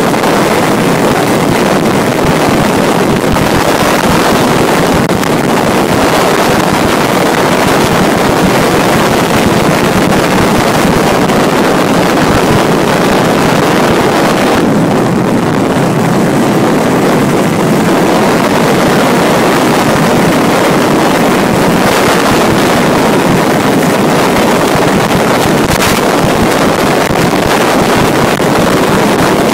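Honda Dio ZX 50 cc two-stroke scooter engine of a road-legal kart running hard at speed, loud and steady, mixed with heavy wind noise on the microphone.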